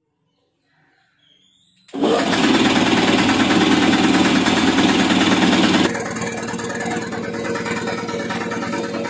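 Belt-driven single-cylinder piston air compressor with an electric motor starting up abruptly about two seconds in, then running with a steady rapid pulsing; it drops in level about six seconds in.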